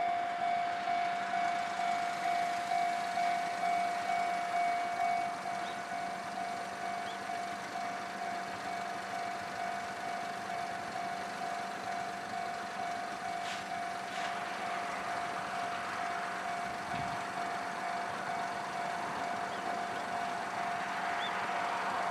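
Japanese level-crossing warning bell ringing in a steady electronic pulse, about two rings a second. Near the end the noise of the approaching 373 series electric train grows underneath it.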